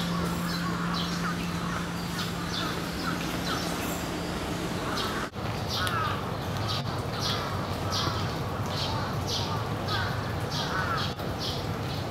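Crows cawing among other birds in the trees, with a short high call repeated about twice a second. A steady low hum runs underneath and stops about five seconds in.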